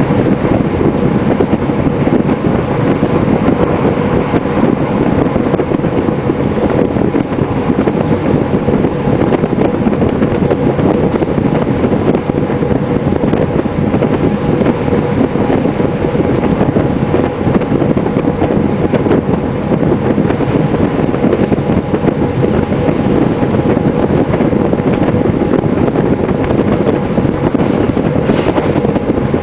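Class 628 diesel railcar running along the line, heard from the driver's cab: a steady rumble of engine and wheels on the rails, with a few faint steady hum tones and wind noise.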